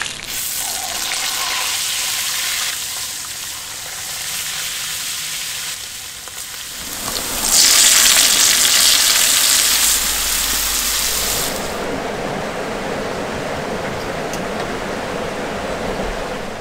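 Food sizzling and frying in a wide, shallow metal pan over a fire. About seven and a half seconds in, the sizzle turns much louder and hissier as a bowl of chopped vegetables is tipped onto the hot pan. It then settles back to a steady, lower frying sound.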